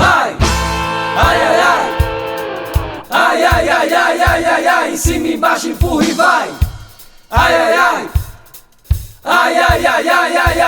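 Upbeat carnival band music in an instrumental passage with no sung lyrics. The beat drops out briefly a few times.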